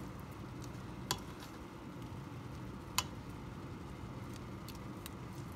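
Kitchen tongs turning slices of beef simmering in their juice in a stainless steel pot, with sharp clicks of the tongs against the pot: one about a second in and a louder one about three seconds in, over a steady low background.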